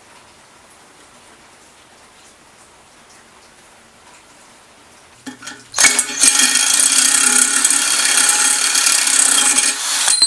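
Faint hiss, then about five seconds in a power tool starts up, runs at a steady speed for about four seconds, and stops abruptly.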